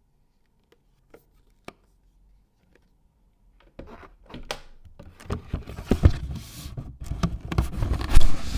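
Packaging and parts being handled close to the microphone: a few faint clicks, then, about four seconds in, a busy run of rustling, scraping and knocks that gets louder, with the loudest knock near the end.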